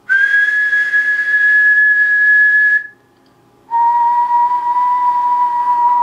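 A steady high whistle tone for nearly three seconds, then after a short pause a lower steady whistle tone for the rest. These are test tones picked up by a small electret microphone circuit, whose output traces a clean sine wave.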